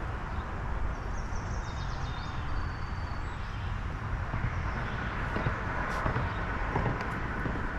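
Steady wind noise on the camera microphone, with a few faint bird chirps in the first few seconds.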